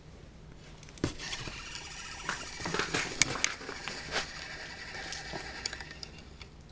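A knock about a second in, then a spinning reel being cranked: a steady whir of the reel's gears with rapid clicks and rattles as line is wound in over an ice-fishing hole, easing off near the end.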